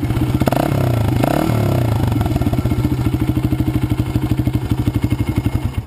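1999 Honda XR100's single-cylinder four-stroke engine running through a homemade soda-can exhaust extension, a lot louder than the stock muffler. It is blipped up twice in the first second or so, then idles with a rapid steady popping, and stops suddenly near the end.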